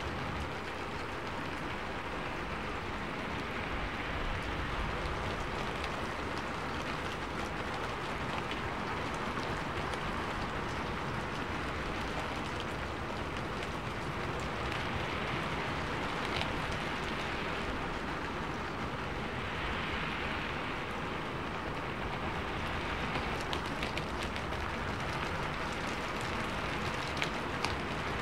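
Steady rain-like hiss with faint scattered pattering, a background rain track masking subliminal spoken affirmations that are too quiet to make out.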